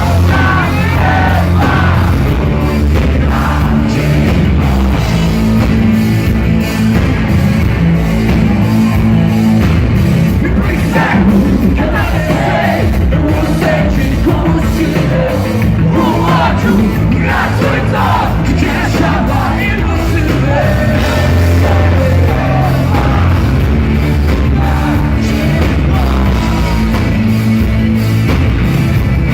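Rock band playing live at full volume, with a lead vocal singing over heavy bass, guitars and drums.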